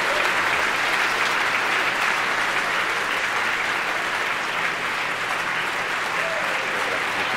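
Crowd applauding and cheering steadily, celebrating the Falcon 9 stage separation that has just been called out.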